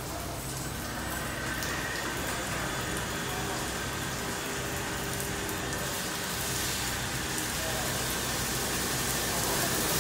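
Washworld Profile MAX automatic car wash running: a steady hiss of water spraying in the wash bay over a low machinery hum, growing slightly louder toward the end.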